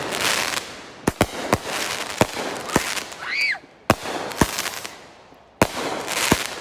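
Consumer fireworks going off: about ten sharp bangs at uneven intervals, each trailed by a crackling hiss.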